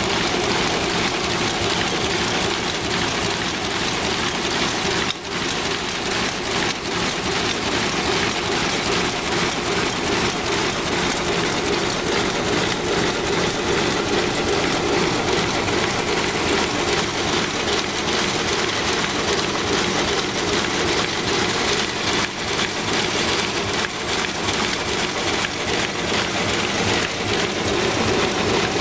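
Automatic blister-bottle cartoning machine with leaflet inserter running: a steady, rapid mechanical clatter over a steady hum.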